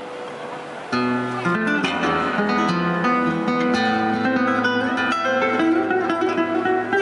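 Acoustic guitar music: plucked notes and chords over a sustained low bass line that comes in sharply about a second in.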